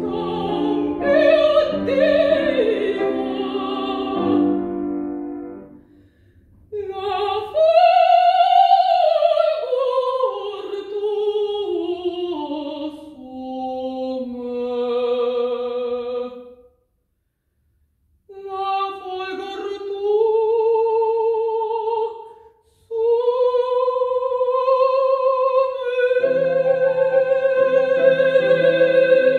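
A woman singing in classical operatic style with vibrato, accompanied by a grand piano. She sings in phrases, with a short silent break about halfway, and ends on a long held note with piano chords joining beneath it.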